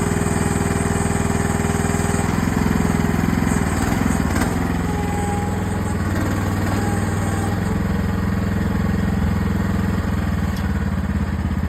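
AGT mini excavator's small engine running steadily; its pitch sags and wavers briefly about four seconds in, then settles again.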